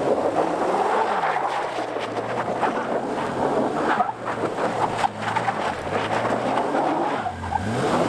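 A 2001 Toyota Tacoma pickup being driven, its engine note rising and falling with the throttle under steady tyre and road noise, with scattered knocks and rattles.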